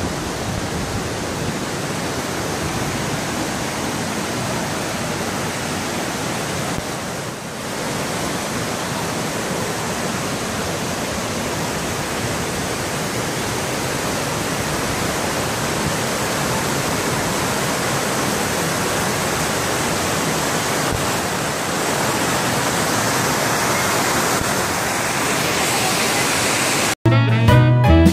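Steady rush of a waterfall, growing a little louder toward the end. About a second before the end it cuts off abruptly and guitar music starts.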